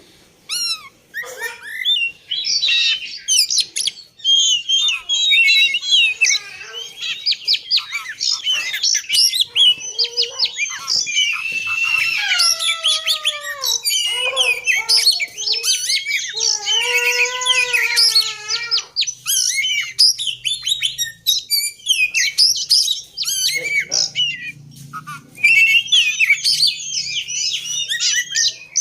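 Oriental magpie-robin (kacer) singing a fast, varied song of whistles, chirps and trills, with a few slower, falling whistled phrases in the middle. A lure song of the kind played to set a silent kacer singing.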